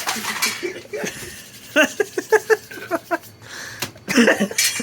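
A person laughing in a quick run of short bursts, with other brief voice sounds around it.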